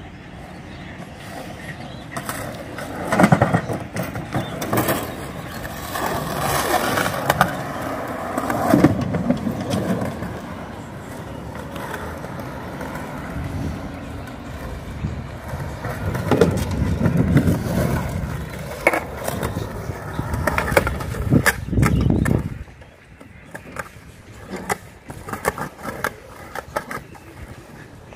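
Skateboard wheels rolling on rough concrete, with several sharp clacks of the board striking the ground. Near the end the rolling dies away, leaving only scattered clicks.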